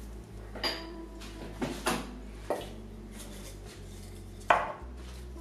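Metal clinks and knocks on a stainless steel Instant Pot inner pot as it is handled: a few light clinks, then a sharper knock near the end.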